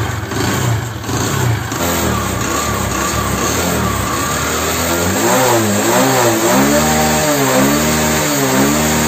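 Bajaj Discover 100 cc single-cylinder four-stroke motorcycle engine running. It is steady at first, then about halfway through it is revved up and back down about once a second, four or so times. The engine is smoking white from burning oil, which the mechanic puts down to a seized piston that is also making noise.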